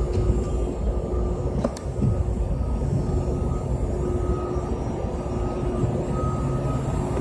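Steady low mechanical rumble with a constant hum, and a single sharp click a little under two seconds in: machinery running in a large warehouse.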